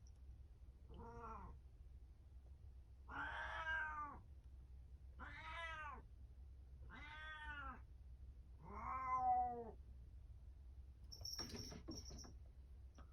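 A domestic cat meowing five times, each meow a short call that rises and then falls in pitch, spaced about two seconds apart. A brief high jingling rattle follows near the end.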